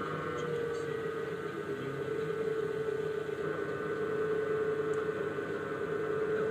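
Pottery wheel motor running with a steady whine, its pitch dipping slightly about a second in.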